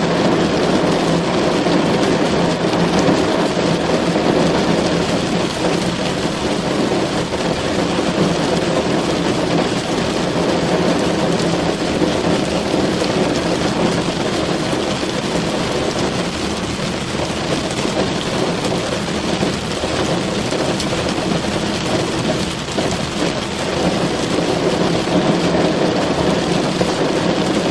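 Rain falling steadily on a car, a dense and even patter with a full low body and no breaks.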